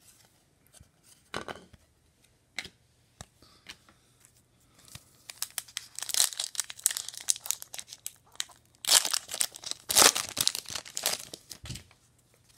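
Foil wrapper of an Upper Deck Trilogy hockey card pack being torn open and crinkled by hand, a dense crackling from about five seconds in, loudest around six seconds and again from nine to eleven seconds. A few light clicks and knocks of cards being handled come first.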